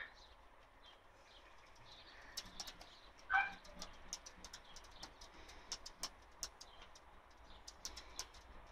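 Dog licking a windowpane: faint, irregular clicks and smacks of its tongue on the glass, with one brief squeak about three seconds in.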